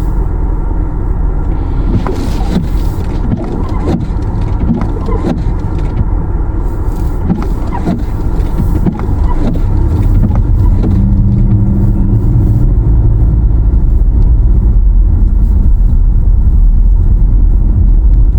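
Car driving on a snowy, icy road, heard from inside the cabin: a steady low rumble of engine and tyres that grows louder about ten seconds in.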